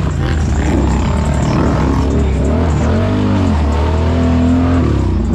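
ATV engine revving, its pitch rising and falling several times in quick succession in the second half.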